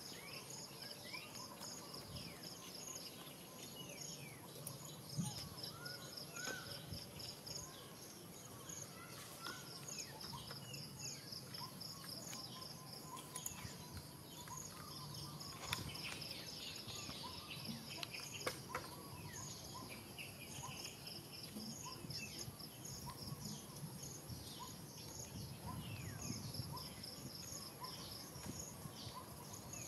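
Faint outdoor ambience: an insect chirps in rapid, even pulses that stop and start, with scattered short high calls over it. A couple of brief clicks stand out near the middle.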